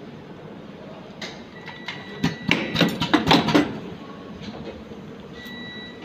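Automatic Type-C connector soldering machine cycling: a run of sharp clicks and clacks from its pneumatic cylinders and moving soldering head, lasting about a second and a half in the middle, over a steady machine hum. A short high tone sounds twice.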